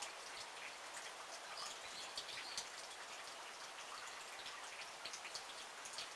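Light rain: a steady hiss with many small scattered ticks of drops.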